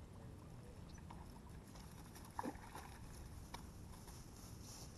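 A small common carp being landed on a dry reed bank: one short thump about two and a half seconds in, then a fainter click, over a low steady rumble of wind on the microphone.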